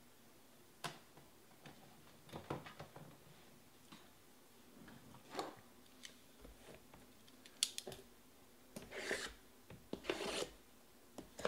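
Cardboard boxes of trading cards being handled and slid across a table: scattered light clicks and rubbing, then two longer scraping rushes near the end.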